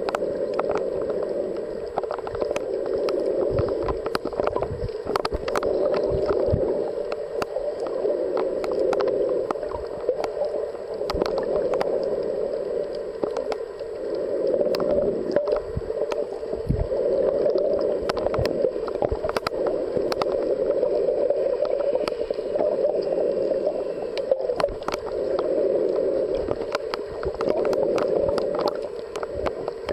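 Underwater ambience picked up by a submerged camera: a steady muffled rush of moving water, with scattered sharp clicks and pops throughout.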